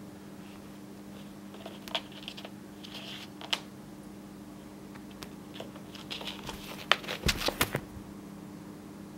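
A Ragdoll kitten's paws scrabbling and skittering on a wooden floor and rug as it chases a small fluffy ball: scattered light taps and scrapes, with a quick burst of sharper knocks about seven seconds in.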